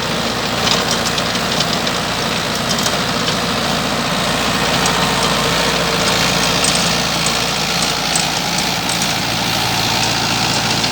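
Mahindra 585 DI XP tractor's four-cylinder diesel engine running steadily in low first gear while ploughing a dry field, with scattered light clicks and rattles over the drone.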